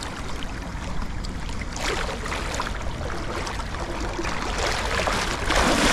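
Fast-flowing river water rushing steadily, with two louder splashing surges, about two seconds in and near the end.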